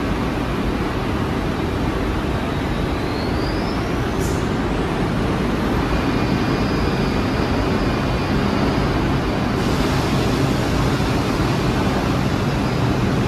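Steady rumble of New York City Subway trains in an underground station, with a short rising whine about three seconds in.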